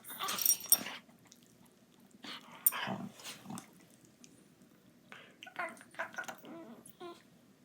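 Pet dogs growling in bursts as they roughhouse with each other, with the loudest bursts near the start, around three seconds in, and about five to seven seconds in.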